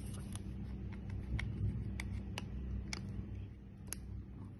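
Fingernails picking and tapping at the back of a new Samsung smartphone, trying to find the edge of its protective plastic film: a scatter of faint, irregular clicks over a low steady hum.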